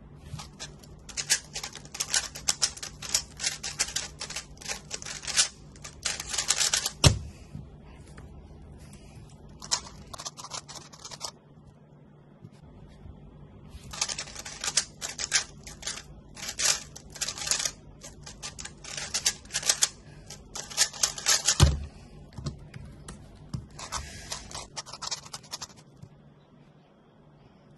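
Moretry Tianma X3 triple-magnetic 3x3 speedcube being turned at full speed: a fast rattle of clicking layer turns in two runs of about six to seven seconds, each ending in a single thump. A shorter run of turning comes near the end.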